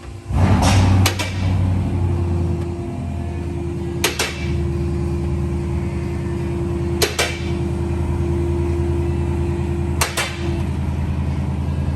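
Twin-turbo HEMI V8 starting up: it catches with a brief loud flare about half a second in, then settles into a steady idle, not yet tuned. A sharp click recurs about every three seconds over the idle.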